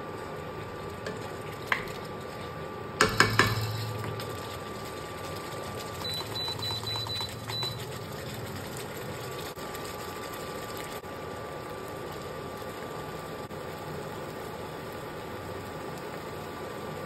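Cooking sounds in a home kitchen: a loud clatter of cookware about three seconds in, then a quick rhythmic rattle with a high pulsing tone for a couple of seconds, over a steady hum.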